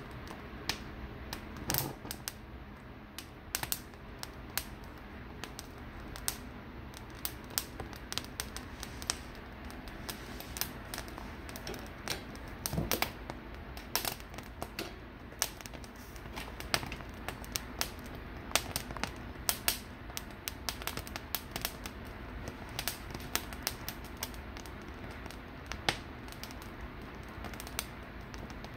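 Poblano peppers crackling as their skins blister over an open gas burner flame: irregular sharp clicks and pops over a steady burner hiss. A heavier knock about 13 seconds in as a pepper is shifted on the grate.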